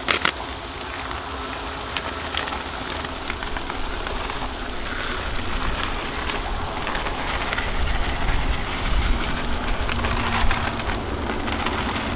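Sweet potato slices and melting butter sizzling on a hot flat-top griddle: a steady, dense crackling hiss. Wind rumbles on the microphone, strongest about eight to ten seconds in.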